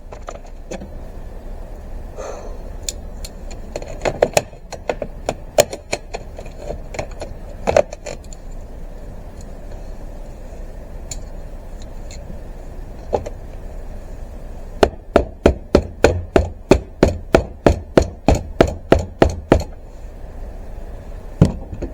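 Nails being driven into pallet-wood boards. Scattered knocks come first, then about fifteen seconds in a fast, even run of about twenty sharp strikes, about four a second.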